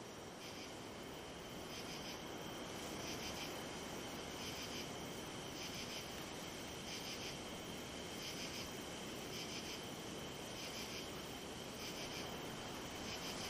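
Night-time crickets chirping: one steady high trill under a second chirp that comes in short pulses about every second and a quarter.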